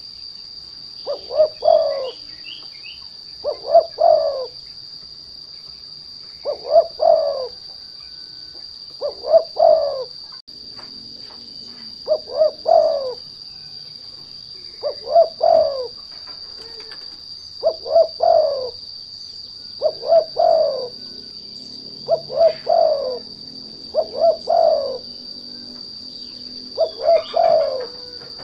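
Spotted dove (derkuku) cooing: a short phrase of quick notes ending in a longer coo, repeated about every two and a half seconds, used as a lure call to set off other doves. A steady high-pitched drone runs beneath it.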